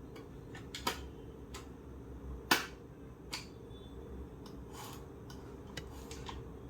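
A few scattered sharp clicks and light knocks, the loudest about two and a half seconds in, from the parts of a steam iron being handled and taken apart.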